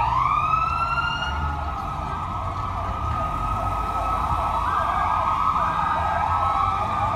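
Several police car sirens sounding at once, their wails sweeping up and down in pitch and overlapping. One climbs steeply right at the start, over a low rumble of vehicles.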